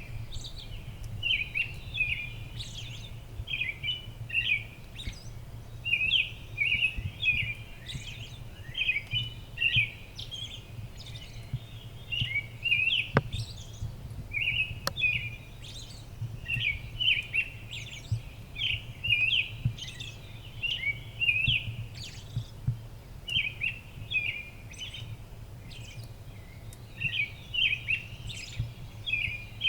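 Several birds chirping and calling continuously, with many short, quick chirps overlapping one another, over a steady low hum.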